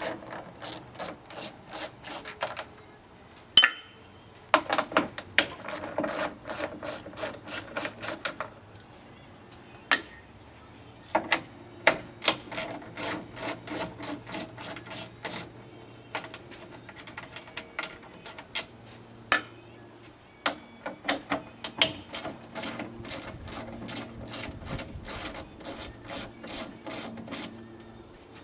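Ratchet wrench clicking as bolts are undone, in several runs of about three to four clicks a second with pauses between them, and a few louder single knocks of tools against metal.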